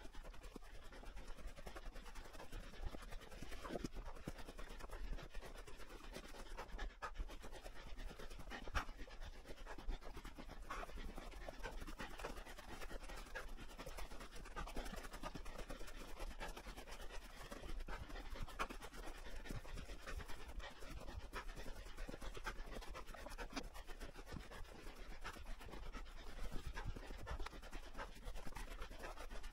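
Footsteps crunching through snow at a steady walking pace, with hard breathing close by.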